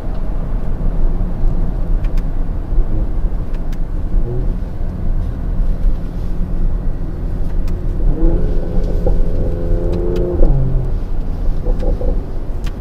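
The Mercedes-AMG GLE 53's turbocharged inline-six running as the car drives, a steady low drone with road noise. A clearer, pitched engine note stands out for about two seconds near the end.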